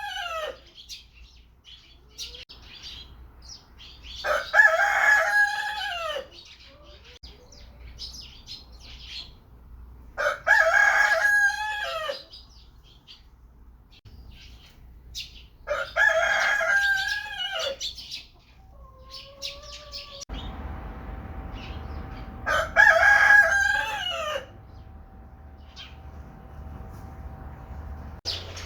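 Rooster crowing over and over, one long cock-a-doodle-doo about every six seconds, with faint chirps and clucks between the crows. About two-thirds of the way in, a steady low hum starts and runs under the last crows.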